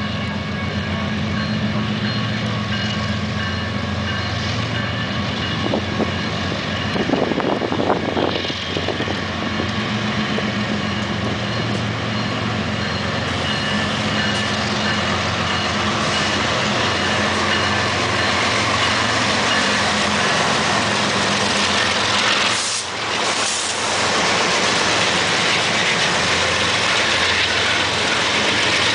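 BNSF diesel freight locomotives approaching and passing at close range: a steady engine drone that grows louder as the units go by, with wheel and rail noise over it.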